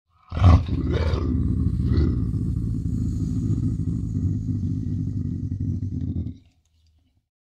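Serval growling: a low, rough, continuous rumble lasting about six seconds, with a few harsher bursts in the first two seconds, then it stops.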